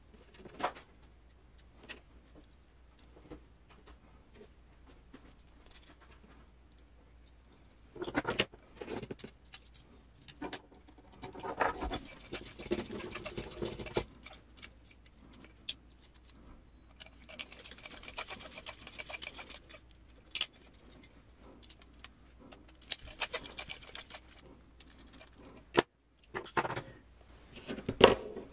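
Hand assembly of an RC crawler's metal chassis rails and rear leaf spring shackles: small metal parts clicking and clinking, with several stretches of scraping and rattling as screws are turned in with a hex driver.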